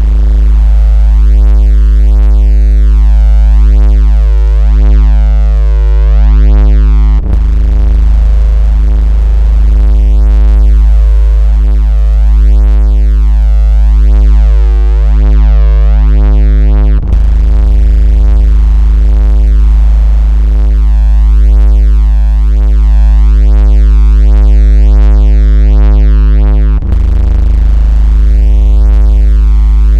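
Loud, steady synthetic 56 Hz bass tone with a stack of buzzing overtones: a generated vibration tone meant to shake a phone speaker. It breaks with a brief click and dip three times, about every ten seconds.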